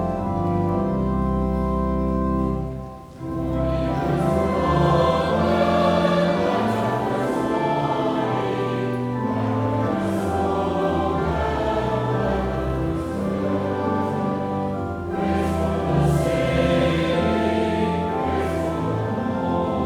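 Organ holding sustained chords. After a brief pause about three seconds in, a group of voices begins singing a hymn with organ accompaniment.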